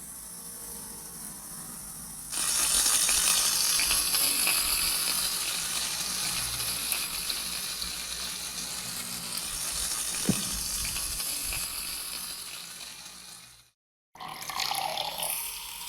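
Water running from a kitchen tap, starting suddenly about two seconds in and then running steadily, fading slightly before it cuts off near the end.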